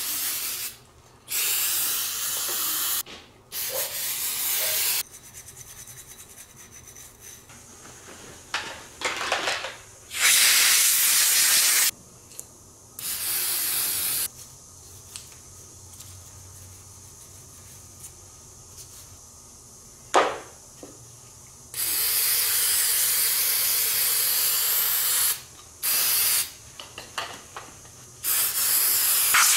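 Aerosol carburetor cleaner sprayed into a Kawasaki Prairie 400 carburetor in repeated hissing bursts, some under a second and some several seconds long, with quieter brush scrubbing between them. A single sharp click comes about twenty seconds in.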